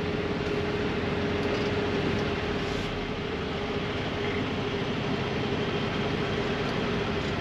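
Semi truck's diesel engine running as the truck moves slowly, heard from inside the cab: a steady drone with a constant hum.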